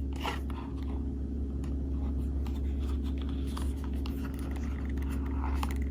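Hands handling a leather pouch, with light scratching and rubbing and a few faint clicks, over a steady low hum.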